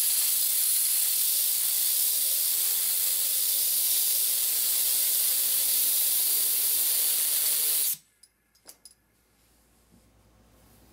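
Compressed air hissing steadily from a blow gun, with a faint whine underneath from the turbocharger compressor wheel it is spinning. The air cuts off suddenly about eight seconds in, followed by a few light clicks.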